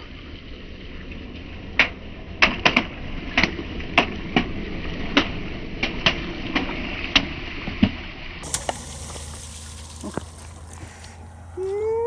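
A car tyre rolling over and crushing brittle objects: about a dozen sharp cracks and snaps, irregularly spaced, over a steady low rumble. Near the end a short rising tone is heard.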